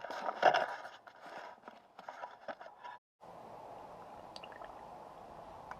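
Gear oil being hand-pumped into an outboard's gearcase, squishing and dripping in irregular bursts as it starts to overflow from the top vent hole. It breaks off suddenly about three seconds in, leaving a faint steady hiss.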